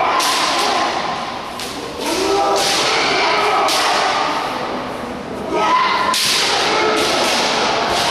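Kendo sparring: bamboo shinai cracking on armour and stamping feet thudding on the floor, a dozen or so sharp hits, over shouted kiai from many fencers. It all echoes in a large gymnasium.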